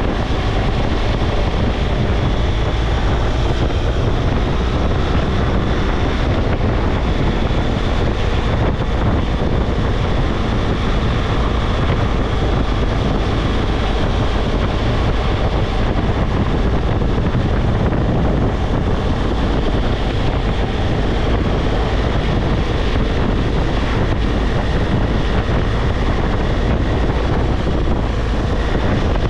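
Steady wind rush buffeting the microphone on a BMW R1200GS cruising at road speed, with the boxer-twin engine and tyre noise underneath.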